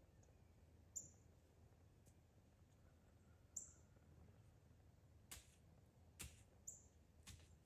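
Near silence with three faint, short, high chirps of a small bird spread a couple of seconds apart, and a few soft clicks in the second half.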